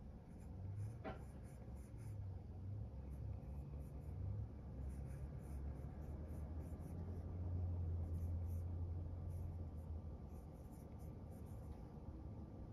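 Apple Pencil tip tapping and scratching on an iPad's glass screen in many short, quick sketching strokes, with a faint low rumble under them that swells in the middle.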